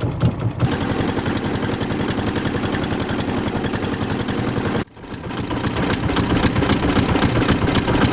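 Small boat engine running steadily with a fast, regular chugging beat; it cuts out abruptly about five seconds in and comes back a moment later.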